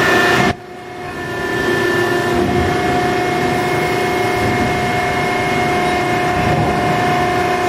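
Hydraulic pump and 12 HP electric motor of a 1999 Adira CNC hydraulic press brake running, a steady mechanical drone with a high whine. About half a second in the sound dips suddenly, then builds back up over a second or so.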